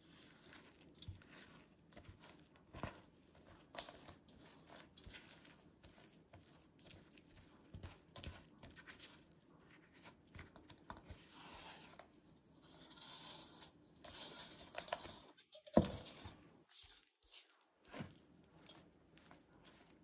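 Silicone spatula stirring sticky bread dough in a stainless steel bowl: irregular soft scrapes, squishes and taps against the steel, with one louder knock about three-quarters through.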